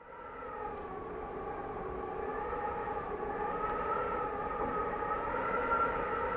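Cold winter wind (kogarashi) howling, with several whistling tones that waver slowly in pitch. It fades in from silence at the start and holds on steadily.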